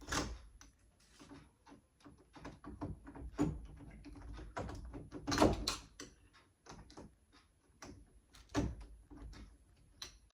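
Irregular clicks and knocks of door-knob hardware being handled while its screws are taken out, with sharper knocks at the start, about halfway through and about two seconds before the end.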